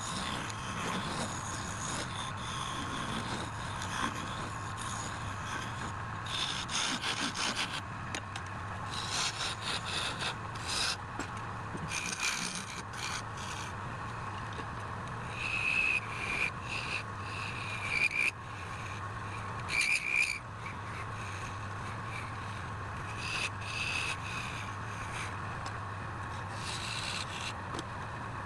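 Wood lathe running with a steady hum while a turning tool scrapes and cuts the spinning wood in irregular bursts, with a few short high squeals from the tool near the middle.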